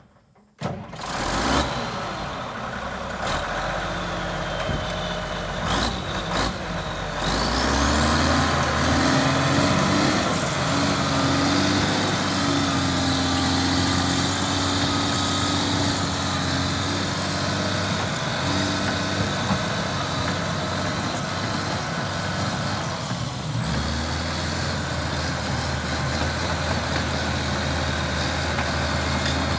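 1998 Dresser TD15E crawler dozer's diesel engine starting about a second in and running. A few seconds later it is throttled up, with a high whine rising with the revs, and runs on steadily under load as the dozer pushes gravel. Engine speed dips briefly near the end, then picks up again.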